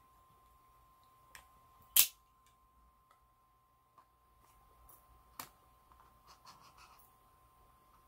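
Plastic blister packaging being cut open with a folding knife. There is one sharp click about two seconds in, then lighter clicks and faint scratching and crinkling as the blade works at the plastic.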